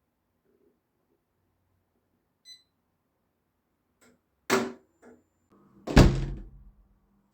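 A short electronic beep, then two heavy thunks about a second and a half apart with a faint knock between them; the second thunk is the loudest and deepest. A low steady hum starts just before it.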